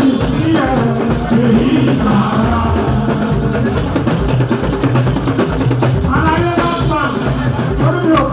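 Fuji band music played live, with steady drums and percussion. A singing voice comes up strongly about six seconds in.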